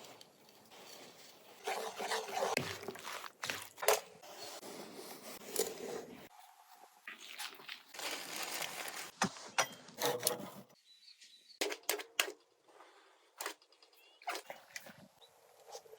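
Fish being prepared by hand outdoors: a string of irregular knocks, clicks and scrapes with short bursts of rustling noise, cut together in several abrupt jumps.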